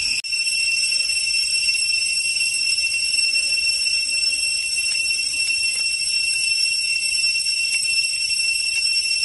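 Steady, high-pitched insect chorus made of several unbroken ringing tones. It cuts out for an instant just after the start, then carries on unchanged.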